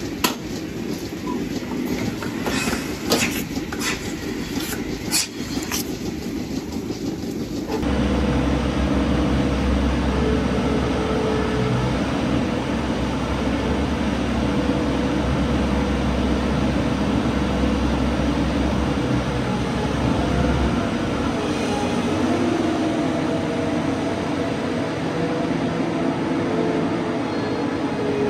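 Milking-parlour equipment clicking and clanking a few times as milking units are handled, then a self-propelled feed mixer wagon's engine and loading gear running with a steady deep hum as it takes up milled grain. The deep hum eases about twenty seconds in while the machine keeps running.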